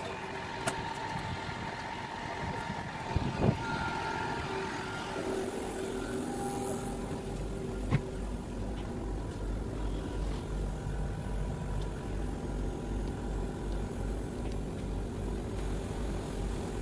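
Inside an Alstom-built electric commuter train carriage: a steady electrical hum, joined about six seconds in by a low, regular throbbing from the running gear, with a few scattered clicks.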